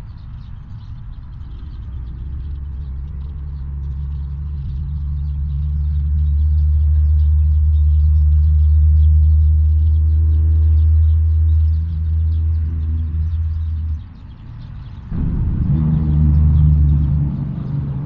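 Low engine rumble of a motor vehicle, a steady hum that grows louder over several seconds, breaks off about fourteen seconds in and comes back a second later.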